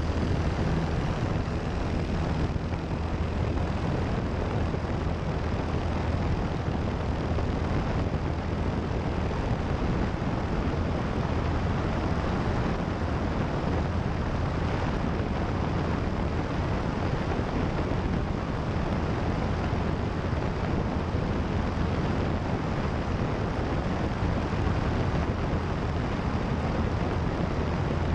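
Single-engine propeller airplane at full takeoff power through the takeoff roll and climb-out, heard from a camera mounted outside the airframe: a steady engine and propeller drone under a dense rush of air. The low engine tones stand out most in the first few seconds.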